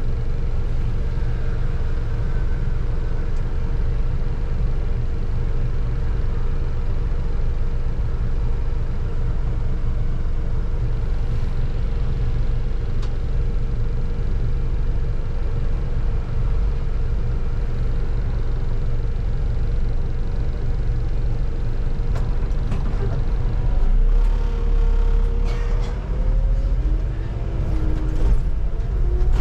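Bus driveline heard from the driver's cab: a steady low rumble with a constant hum while the bus waits in traffic. Near the end the hum glides up and down in pitch as the bus moves off.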